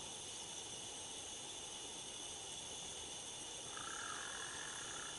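Night insect chorus, a steady high-pitched buzzing in several layers, faint. About four seconds in, a lower trill joins for a second or so.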